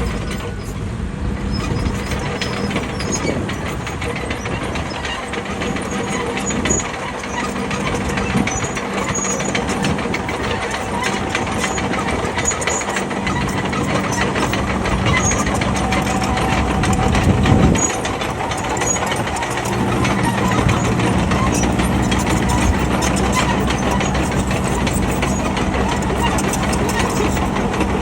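Bulldozer diesel engine running steadily under work, with a brief louder swell about two-thirds of the way in.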